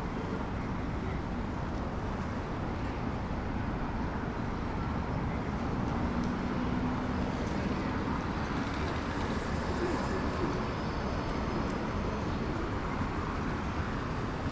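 Steady city street ambience of traffic noise, with a few indistinct voices mixed in.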